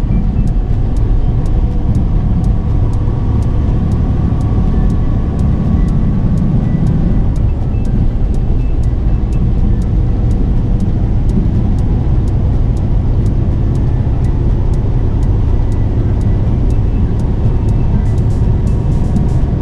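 Semi-truck driving on the highway: a steady engine and road drone. Background music with a light, evenly ticking beat plays over it.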